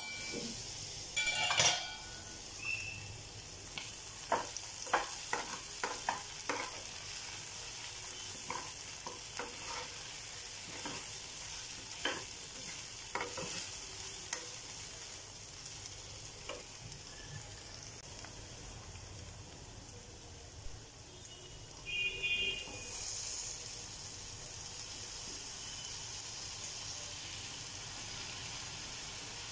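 Potatoes frying with a steady sizzle in a pan while a spatula stirs and scrapes them with short clicks. A metal pan lid clanks as it is lifted near the start, and there is a brief ringing metal clink about two-thirds of the way through.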